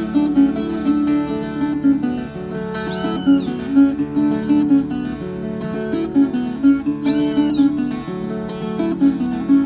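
Closing music on a viola caipira, the Brazilian ten-string folk guitar, playing a quick plucked tune in an even rhythm. A short high sound rises and falls twice, about four seconds apart.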